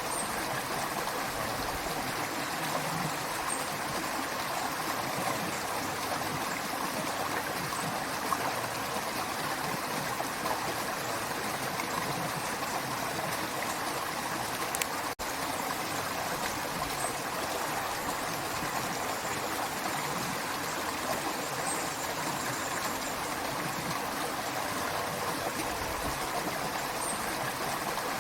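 A creek running: a steady rush of flowing water, broken by a split-second dropout about halfway through.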